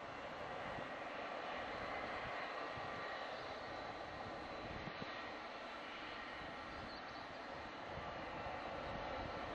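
Boeing 727's Pratt & Whitney JT8D turbofan engines running steadily: an even rushing noise with a faint high whine, growing slightly louder near the end.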